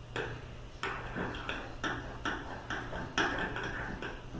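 A utensil stirring slime in a glass dish, knocking and scraping against the glass in an uneven rhythm of about two strokes a second.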